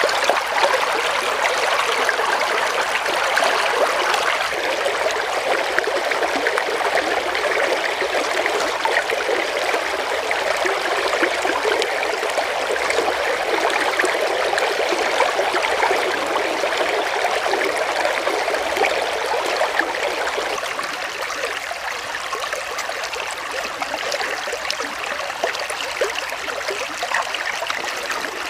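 Shallow stream running over rocks: a steady rush of water, slightly quieter over the last several seconds.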